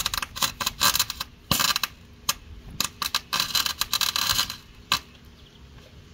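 MIG welder arc crackling and sputtering in a run of short, uneven bursts as the steel exhaust pipe is welded, stopping about five seconds in.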